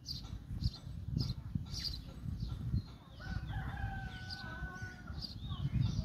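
House sparrows chirping, short high chirps about twice a second. About three seconds in, a longer, steadier call from another animal joins them and holds for nearly two seconds.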